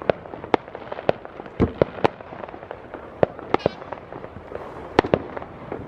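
Fireworks going off around the neighbourhood: a dozen or so sharp bangs and pops at irregular intervals and of differing loudness, over a constant background of more distant fireworks.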